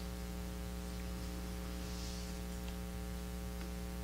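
Steady electrical mains hum with a low hiss, unchanging throughout: background hum of the recording or sound system.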